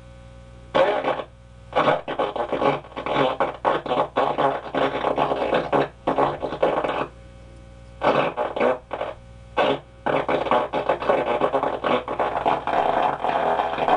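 Zenith tube radio playing a station through its speaker: the broadcast comes through noisy and choppy, in bursts with short pauses about a second, six and eight seconds in, over a steady hum.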